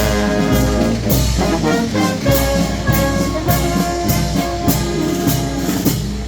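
Brass band playing a tune on trumpets and trombones, with regular drum strokes keeping the beat.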